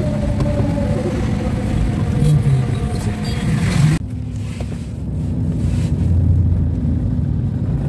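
Car engine and traffic noise heard from inside a moving car. About four seconds in, the sound cuts abruptly to a steadier, lower engine-and-road rumble in the car's cabin.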